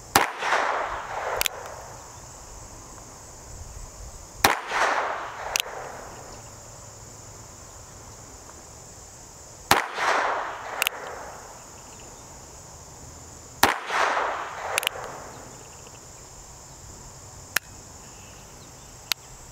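North American Arms 22S mini revolver firing .22 Short rounds: four sharp shots about four seconds apart, each with a short ringing echo and followed by a lighter click. Two faint clicks come near the end.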